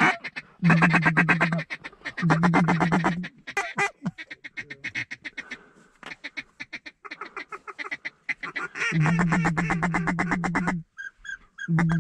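Duck call blown at incoming ducks: several long runs of fast, evenly repeated quacking chatter with scattered single notes between them, then a few short high peeps near the end.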